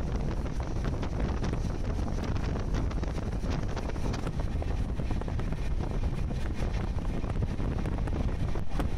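Steady low rumble of a passenger train running at speed, heard from a window seat, with wind buffeting the microphone and many small clicks and rattles.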